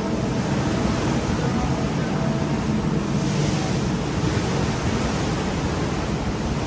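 Wind buffeting the microphone on an open ship's deck: a steady low rumble with hiss above it.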